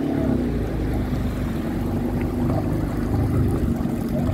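Yamaha jet ski's engine running at a steady pitch while underway, with water rushing along the hull.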